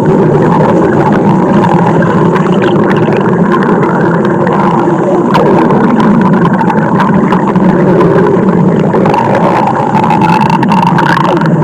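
Loud stomach growling sound effect, a continuous low gurgling rumble whose pitch wavers without a break.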